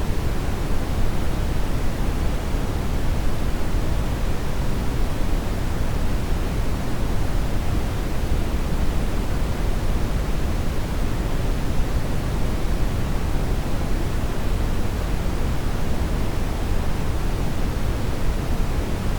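Steady synthetic noise: a constant, even rush with no events or changes, heaviest in the deep lows and thinning toward the highs.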